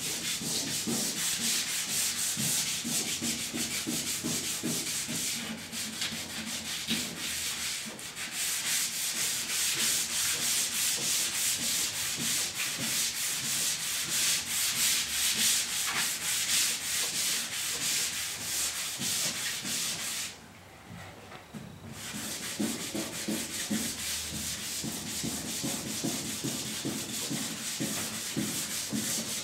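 Sandpaper rubbed by hand over a truck bed floor in quick back-and-forth strokes, a steady scratchy rasp that stops for a second or two about two-thirds of the way through, then resumes.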